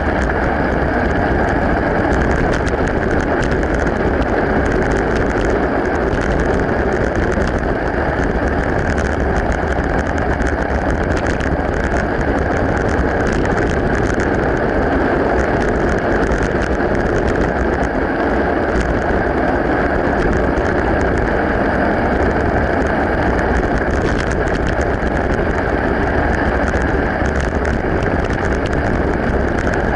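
Mountain bike riding along a gravel road: a steady rushing noise of tyres on gravel and air past the microphone, with fine crackling and rattling throughout.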